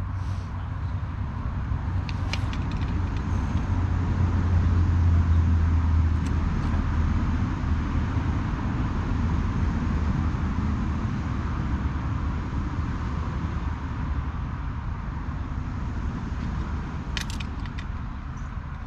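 A motor's low, steady engine hum that swells to its loudest about five seconds in and then slowly eases off, with a few light clicks.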